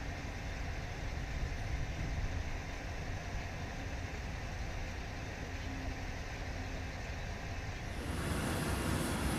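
Steady low rumble of distant machinery and engines. About eight seconds in it gives way to a louder, steady hiss from a torch cutting structural steel.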